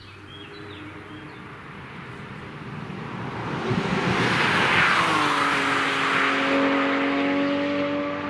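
A car driving at speed on a race track, approaching and passing close. Its engine grows louder to a peak with a rush of tyre and wind noise about four to five seconds in, then holds a steady, high engine note as it pulls away.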